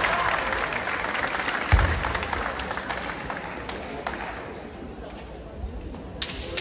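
Kendo bout on a wooden gym floor: voices ring through the large hall, with one sharp heavy thud about two seconds in, and the sound then dies down to a quieter hall ambience.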